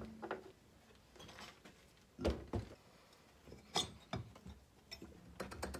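A few light metallic knocks and clicks as an alternator is taken apart on a workbench, its case bolts out and the two halves of the housing pulled apart, with a quick run of small ticks near the end.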